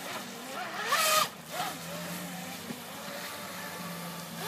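Small RC jet boat's brushless electric motor (Turnigy 3900 kV on a 3S LiPo) whining, its pitch rising and falling with the throttle as the boat turns. About a second in it revs hard in a loud rising burst with a rush of hiss, and it surges again at the very end.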